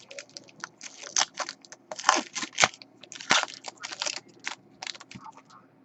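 Foil trading-card pack wrappers crinkling and tearing as packs are opened and handled, in a run of quick, irregular rustles and crackles.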